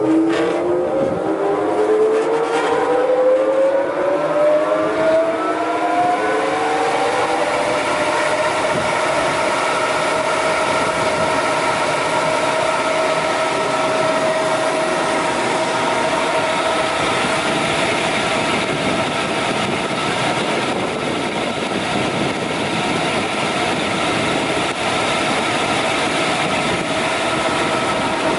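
SAFO DZTA 63 double-disc sander starting up: its motor and sanding discs spin up with a rising whine over the first eight seconds or so, then run on at a steady pitch.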